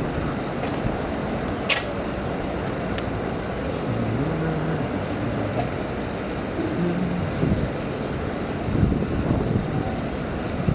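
Steady city traffic rumble, with one sharp click about two seconds in.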